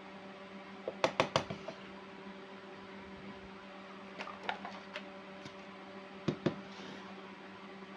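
Small plastic toy cookware pieces being set down and handled on a hardboard surface. There is a quick cluster of sharp knocks about a second in, a few light clicks around four seconds, and two more knocks a little after six seconds, over a steady low hum.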